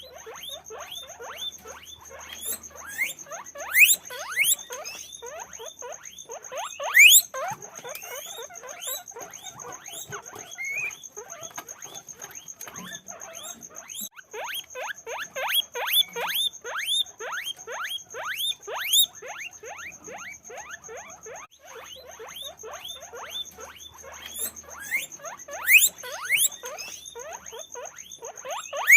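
Several guinea pigs wheeking: a dense run of short, rising squeaky whistles, several a second, with a few louder, higher squeals standing out.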